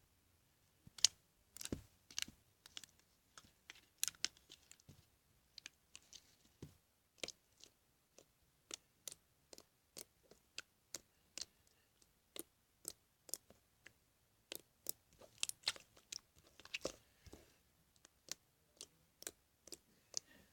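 Glossy, jiggly slime being squeezed and folded by hand, making sharp clicky pops. They come irregularly, about one or two a second, with a few quick clusters.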